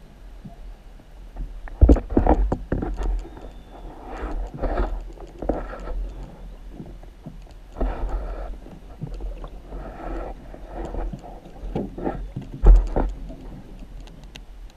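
Underwater sound picked up by a GoPro in its waterproof housing beside a boat's hull: irregular muffled rushes of water and knocks, the sharpest about two seconds in and again near the end.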